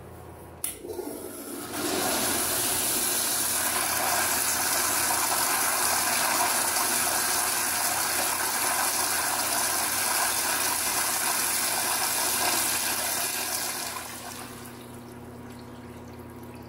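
A newly installed floor-mount toilet flushing. A click about a second in is followed by a loud rush of water swirling through the bowl for about twelve seconds, which then eases off to a quieter flow near the end.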